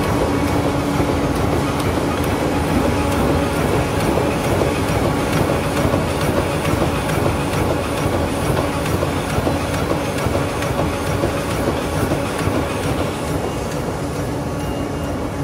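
High-speed corrugated-board flexo printer slotter and rotary die-cutter running at production speed, feeding and processing sheets. It makes a steady machine din with a constant hum and a fast, regular clatter.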